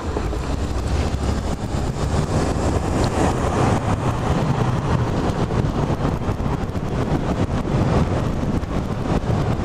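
Wind rushing over the microphone of a rider on an electric bike during a hard acceleration run, building a little over the first couple of seconds and then holding steady.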